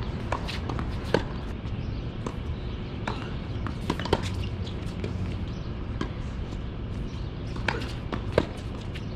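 Tennis balls struck by rackets and bouncing on a hard court: a handful of sharp, irregularly spaced pops over a steady low background rumble.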